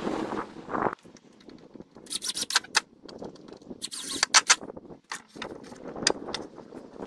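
Cordless drill driving screws into pallet-wood boards in short bursts, with sharp clicks and knocks of wood. The bursts come in two clusters, about two seconds in and about four seconds in, and a few single clicks follow.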